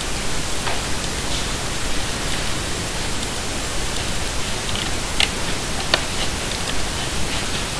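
Steady hiss from the microphone and room, with two short, sharp clicks a little under a second apart about five seconds in.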